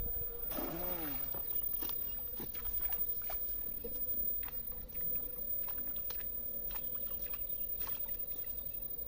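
A snail rake thrown on a rope hits the pond with a splash about half a second in. Then the rope is hauled back hand over hand, with scattered small clicks and faint water sloshing as the rake is dragged along the bottom.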